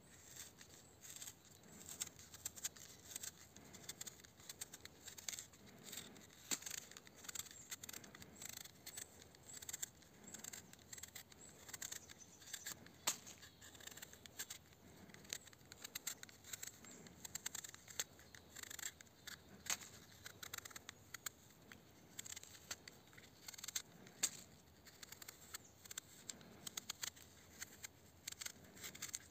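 Tonife Nova fixed-blade knife peeling an apple: faint, crisp cuts and scrapes of the blade through the skin and flesh, many short irregular strokes.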